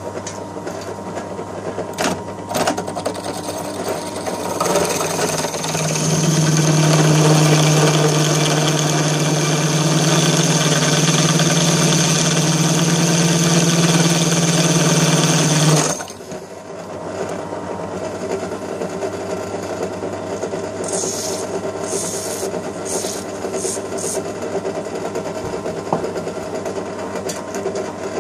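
Drill press running with a 9 mm twist drill boring into a soft, non-hardened ball bearing. From about five seconds in the cutting gets louder, a steady hum with a hiss over it, then about sixteen seconds in it drops back to the quieter steady sound of the press.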